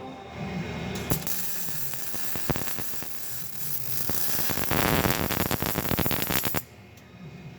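Ratchet wrench clicking as exhaust hanger hardware is tightened, with a fast, loud run of clicks about five seconds in that cuts off suddenly.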